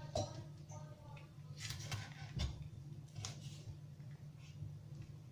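Kitchen knife cutting long green peppers on a wooden cutting board: several sharp knocks of the blade against the board with crisp slicing between them, over a steady low hum.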